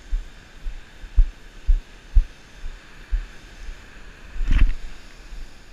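Footsteps thudding dully on beach sand, about two a second, over a steady hiss of surf. About four and a half seconds in comes a louder, longer thump.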